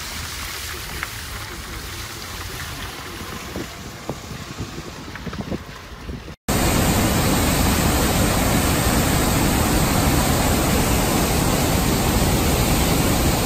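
Steady rush of rain and a swollen river with scattered light ticks; then, about six seconds in, after a brief cut to silence, the much louder, even rushing of a brown floodwater torrent racing down its channel.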